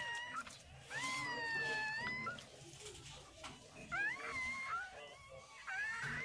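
Newborn puppies crying: a series of high-pitched, mewing squeals, with one long, drawn-out cry about a second in and shorter ones after it.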